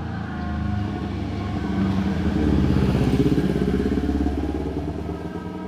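A motor vehicle passing close by, its engine growing louder to a peak about halfway through and then fading away.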